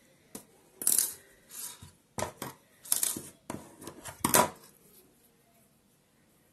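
Metal scissors handled and set down on a table: a quick series of sharp metallic clicks and clinks over about four seconds, the last one loudest.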